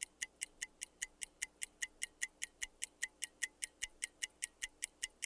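Clock ticking sound effect: fast, evenly spaced sharp ticks at about five a second, as in a time-passing transition.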